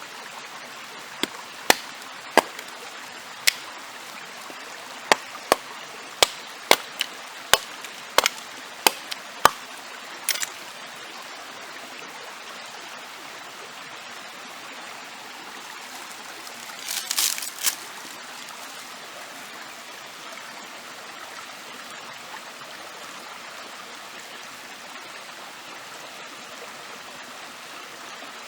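Stream running steadily, with a run of about fifteen sharp knocks over the first ten seconds and a short clatter a little past the middle.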